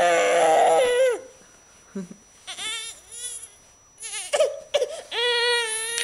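Baby fussing and crying: a long high cry that breaks off about a second in, a few short whimpering cries, then another long cry near the end.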